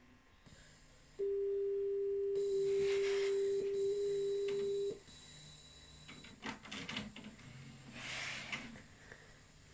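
A steady pure electronic tone from VHS tape playback, held for nearly four seconds before cutting off sharply. A few faint clicks and a brief hiss follow.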